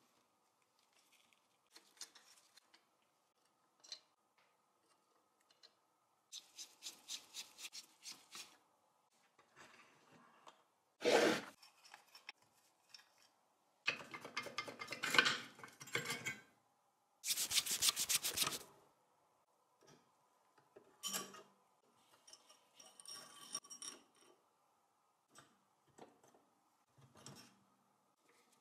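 Metal-on-metal scraping and grating as screws are worked out and the sheet-metal housing of a 1920s Pathé Baby projector is worked loose. The strokes come in separate bursts: a quick, evenly spaced run of short strokes, then three louder grating scrapes in the middle, then softer scrapes.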